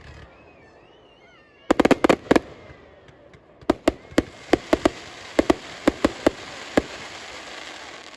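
Display fireworks going off: a rapid volley of about eight sharp bangs about two seconds in, then a crackling hiss with scattered single bangs from about halfway through.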